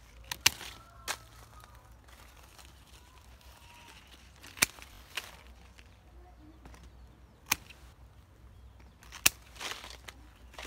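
Pruning shears snipping through pomelo twigs: about six sharp snips at irregular intervals, a second or more apart, with leaves rustling near the end.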